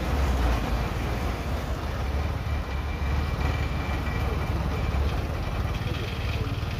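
Kubota DC93 rice combine harvester travelling on its rubber crawler tracks, its diesel engine running with a steady low drone.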